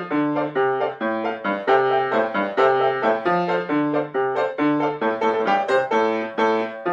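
Solo piano playing a brisk, lively dance: a low bass note alternating with chords above it in a steady, quick pulse of about three notes a second.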